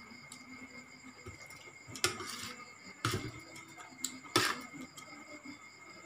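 Eating sounds from a ceramic bowl of seafood papaya salad taken by hand: a few short crunches and clatters, about two seconds in, at three seconds, and twice around four seconds, the loudest near four and a half seconds. A steady high insect chirring runs underneath.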